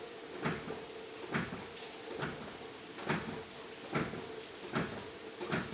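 Brake pedal of a 1998 Dodge Grand Caravan being pumped over and over, giving seven knocks about one a second, as the front caliper pistons push the newly fitted brake pads against the rotor.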